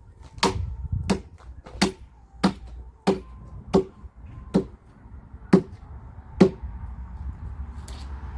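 Firewood being chopped by hand: nine sharp strikes, about one every 0.7 s, each with a short ring, stopping about six and a half seconds in.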